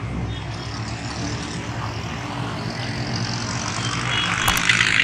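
Street traffic: engines of motorcycles and auto-rickshaws running, a steady low hum under a broad din that swells near the end, with a sharp click about four and a half seconds in.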